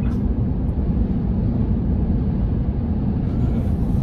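Steady low rumble of road and wind noise inside the cabin of an electric Tesla Cybertruck cruising at about 50 mph while towing a travel trailer; no engine note.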